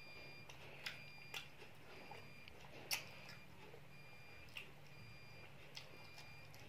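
A child chewing chicken satay, quiet mouth sounds with a few irregular soft clicks and smacks, the loudest about three seconds in. A low steady hum runs underneath.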